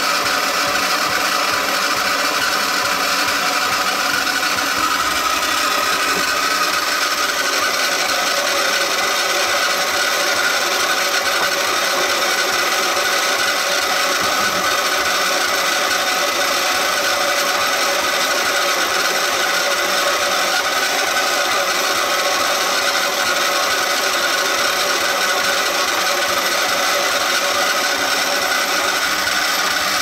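1968 Suzy Homemaker toy washing machine running steadily on a wash cycle: its small battery-powered motor spinning the gears that drive the agitator.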